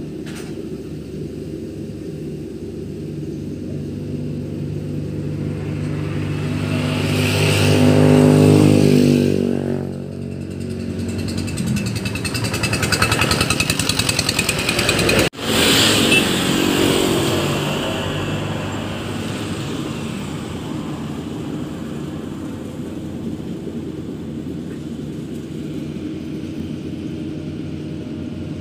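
Engine of a rice harvesting machine running steadily. It grows louder twice, about eight seconds in and again from about twelve to seventeen seconds, then settles back, with a brief break in the sound in the middle.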